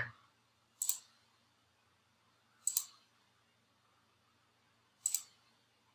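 Three single computer mouse clicks, about two seconds apart, each short and sharp.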